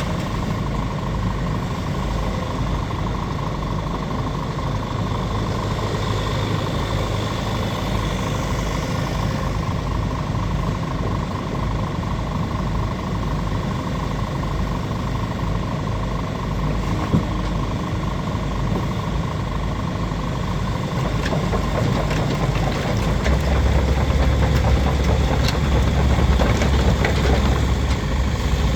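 Case CX80C excavator's diesel engine running steadily at idle. It grows louder and deeper about three-quarters of the way through.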